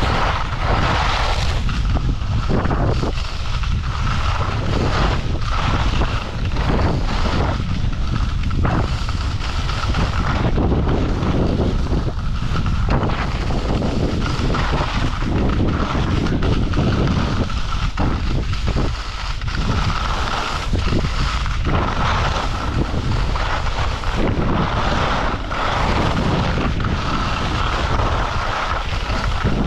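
Wind buffeting a GoPro's microphone while skiing downhill, a heavy, uneven rumble throughout. Under it is the continuous hiss and scrape of skis running over packed snow.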